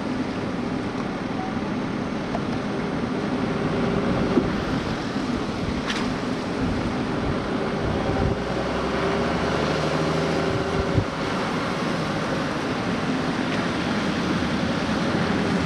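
Car driving slowly, heard from inside the cabin: a steady engine and road noise, with a small click about six seconds in and a low knock near eleven seconds.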